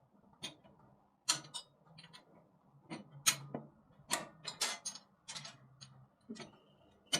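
A dozen or so sharp, irregular metallic clicks and clinks: washers and bolts being handled and fitted while assembling a motorcycle wheel chock.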